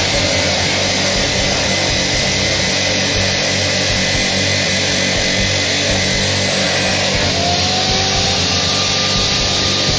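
Abrasive cut-off wheel of an automatic rod cutting machine grinding through a metal rod, a loud steady grinding noise over the hum of its motor. About seven and a half seconds in, a rising tone is heard as the wheel comes free of the cut.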